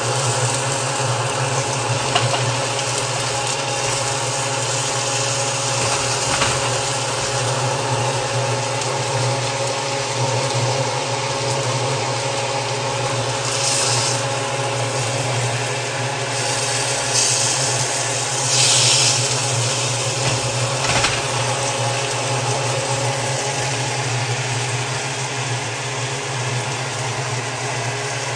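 A steady machine hum with several fixed tones, with a few short hissing sounds in the second half.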